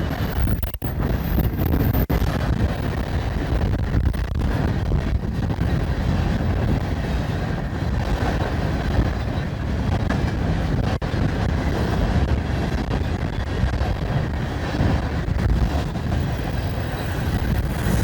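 A loaded coal train rolling past with its distributed-power locomotive approaching, under heavy wind rumble on the microphone. The sound cuts out for an instant a few times, about a second in, about two seconds in and about eleven seconds in.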